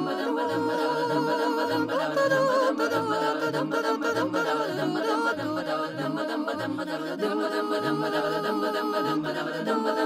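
Vocal music: sung voices holding long, wavering notes over a low, regular pulse.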